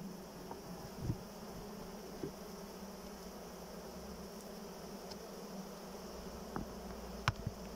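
Honeybees in an opened wooden hive humming steadily, with a few light knocks about a second in and near the end.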